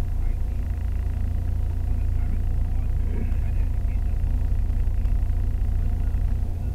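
Steady low rumble inside a car's cabin, picked up by a dashcam while the car stands in traffic: the engine idling.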